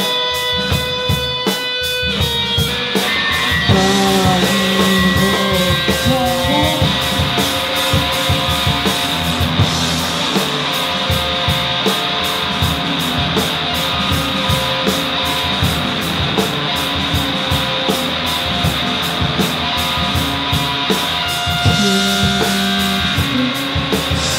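Free-improvised noise-rock duo: electric guitar with held and bending tones over rapid, dense drumming.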